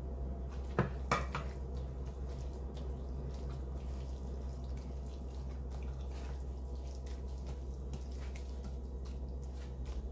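Hands mixing a wet chopped-tomato stuffing with coconut milk in a ceramic bowl: soft wet squishing with many small clicks. There are two sharp knocks about a second in, as the coconut milk is scraped from the can into the bowl. A steady low hum runs underneath.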